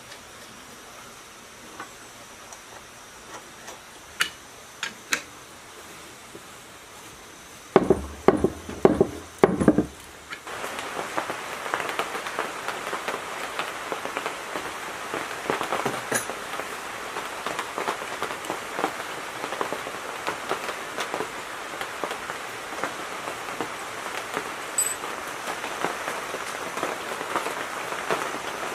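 Metal hand tools working on a diesel engine's valve gear during assembly: a few light clicks, then a quick run of sharp metallic knocks about a third of the way in, followed by a dense, steady run of small irregular ticks for the rest.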